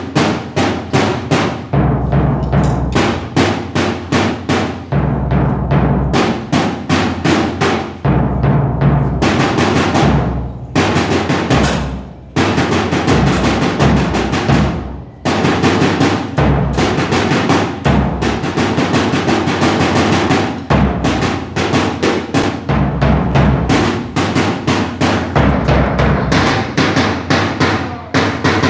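Live drumming in a fast rhythm on a marching bass drum struck with a felt mallet, with a smaller drum played with sticks: dense rapid strokes over deep bass-drum beats, breaking off briefly a few times.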